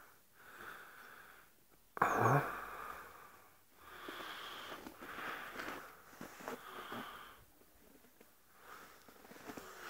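Wheezy breathing and sniffing close to the microphone, with a short, sharp louder breath about two seconds in and softer breaths later.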